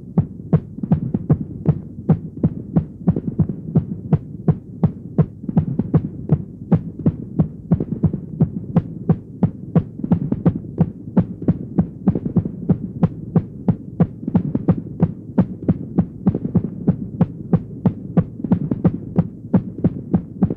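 Irregular heartbeat sound effect: short beats at roughly two to three a second, unevenly spaced, over a steady low hum.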